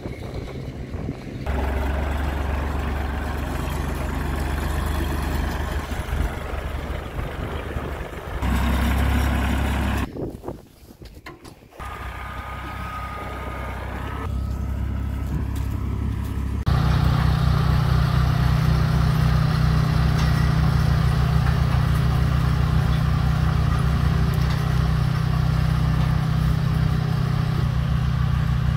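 Small tractor's engine running steadily as it drives along, loudest over the last twelve seconds or so. It is preceded by quieter stretches of engine and outdoor noise with a short near-quiet break partway through.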